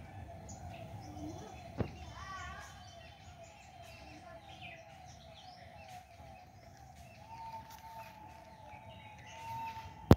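Outdoor park ambience with birds chirping. Under it runs a faint wavering call that repeats several times a second and turns into one steady tone for the last few seconds. There is a sharp click about two seconds in and a louder one at the very end.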